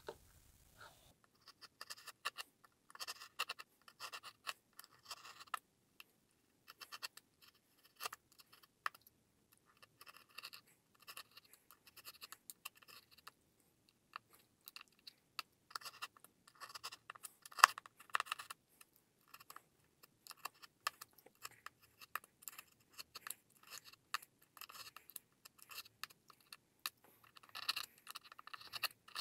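Stanley utility knife blade scoring and cutting through plasterboard in short scratching strokes, coming in bursts with brief pauses. A sharp click, the loudest sound, comes a little past halfway.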